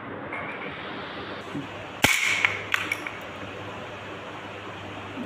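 A homemade slingshot rifle firing: one sharp snap about two seconds in, followed by a few lighter ticks over the next second, over a steady hiss.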